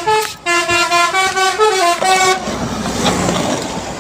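Bus telolet horn playing a short tune of stepped notes that ends about two and a half seconds in, followed by a steady rush of vehicle noise.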